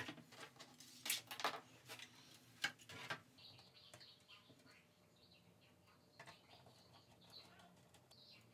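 Faint handling noise of 3D-printed plastic RC wing parts on a workbench: several light taps and clicks in the first three seconds, then soft rubbing with faint high squeaks.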